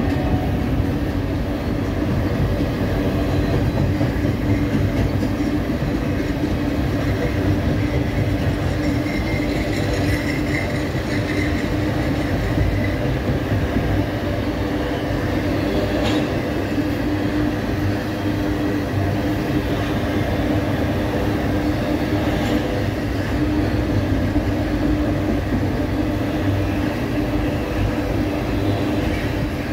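Freight train rolling past at steady speed: a continuous rumble of steel wheels on rail, with a faint high wheel squeal about ten seconds in.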